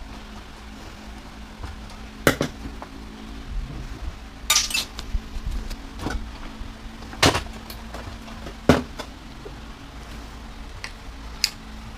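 Tools and metal parts of a washer/dryer combo clinking and knocking as it is taken apart for scrap: about five sharp separate knocks, one a short rattle, over a steady low hum.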